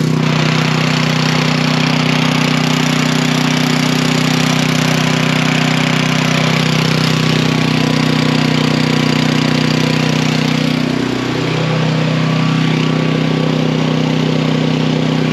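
Portable generator's engine, retrofitted with a Thunderstorm Generator unit, running steadily at a constant speed; its speed dips briefly about eleven seconds in and then recovers.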